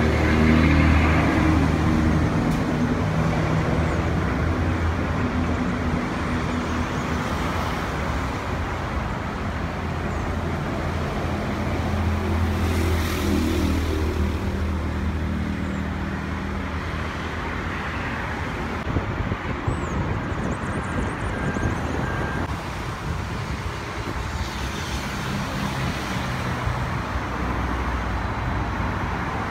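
A steady, low engine hum over a constant wash of traffic noise, loudest in the first couple of seconds, with the hum easing off after about 16 seconds.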